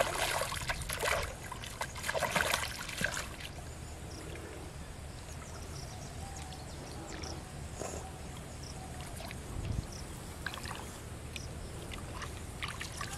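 Splashing in shallow pond water: one sharp splash right at the start, then a few seconds of further splashing that dies away into quiet outdoor background.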